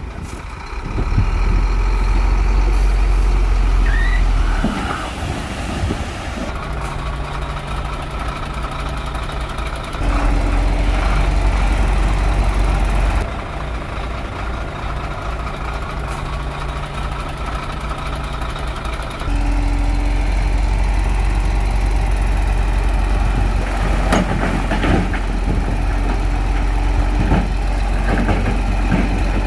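Shantui bulldozer's heavy diesel engine working, rising to a loud rumble under load and dropping back toward idle several times, with clanks and scrapes from the work.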